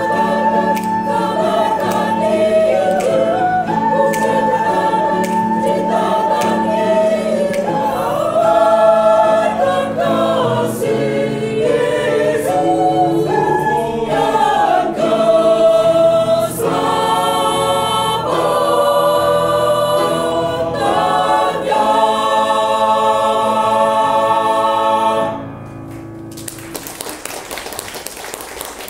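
Mixed church choir singing a hymn in Indonesian in parts, closing on a long held final chord that cuts off sharply about 25 seconds in.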